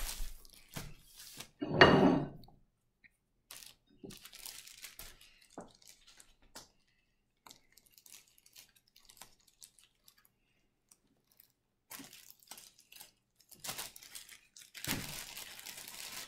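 Plastic bag of tortillas crinkling and rustling in scattered bursts as it is handled and opened by hand, with a louder thump about two seconds in.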